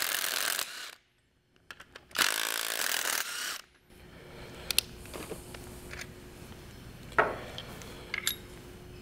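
Cordless drill running in two short bursts, the second about two seconds in and lasting about a second and a half, as the fixture bolts are backed out of the drilling fixture on the engine's cylinder head. After that come light metal clicks and knocks as the fixture is handled.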